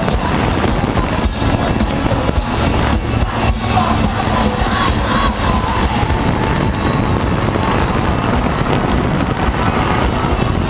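Steady motor buzz and wind noise from a camera drone flying over the crowd, with the concert's live music faintly audible underneath.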